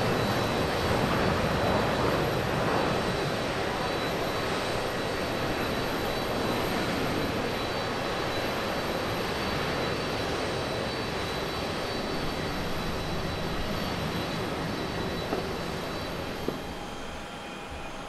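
Twin-engine jet airliner's engines at takeoff power as it lifts off and climbs away: a steady broad rush with a faint high whine, slowly fading.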